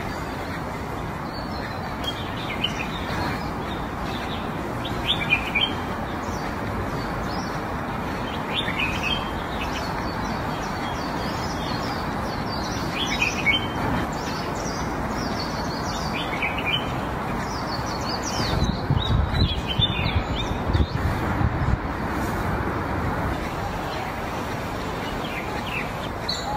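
Small birds chirping in short, scattered bursts over a steady outdoor background hiss, with a brief spell of low rumbling about two-thirds of the way through.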